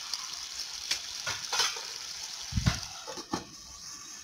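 Pui shak and potato curry simmering and sizzling in a pan, then a steel lid set on with a few knocks and clatters, the loudest about two and a half seconds in. After that the simmering is muffled and quieter.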